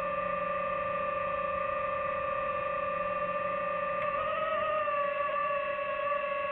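DJI FPV drone's motors and propellers whining steadily in a hover, heard through the drone's own microphone. About four seconds in the pitch wavers up a little and settles.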